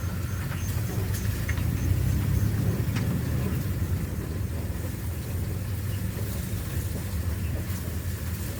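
Car engine running at a low, steady pace with road rumble as the vehicle creeps along slowly.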